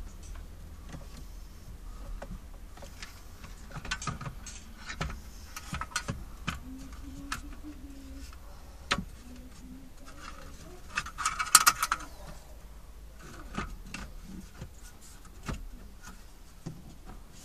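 Plastic clicks, taps and rattles of a Jameson JS 8400 MP3 car stereo and its mounting frame being pushed into a 2002 Toyota Corolla's dashboard opening while its wiring is handled. Scattered single clicks, with a quick cluster of louder clicks about two-thirds of the way through.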